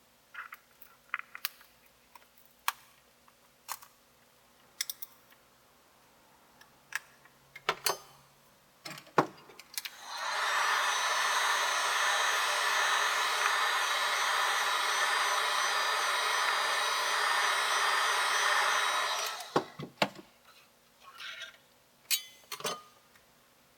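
Light clicks and taps of a scraper against the iPad's glass, then a heat gun blows steadily for about nine seconds, warming the adhesive under the digitizer, and stops, followed by a few more clicks.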